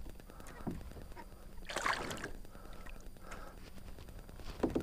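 Water lapping and sloshing around a kayak, over a low rumble, with two short louder noises, about two seconds in and near the end.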